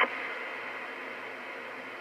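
Steady static hiss from a Stryker CB radio's speaker between transmissions, with a faint steady high tone running through it.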